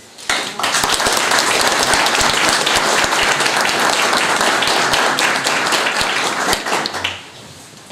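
Audience applauding: many hands clapping together. It starts just after the beginning and dies away about seven seconds in.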